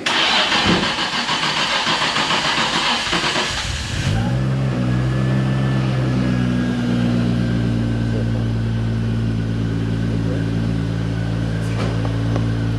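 Car engine cranking with a rough, ragged noise for about four seconds, then catching about four seconds in and settling into a steady idle.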